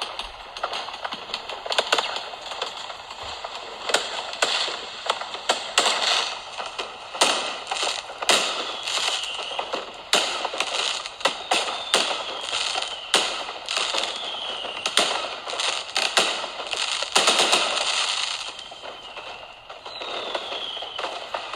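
Fireworks sound effect: a dense run of bangs and crackling, with a few short whistles falling in pitch.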